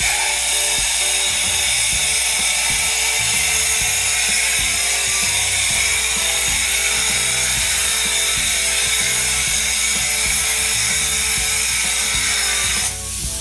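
Spray foam insulation gun hissing steadily as it sprays foam, then cutting off suddenly near the end, over background music.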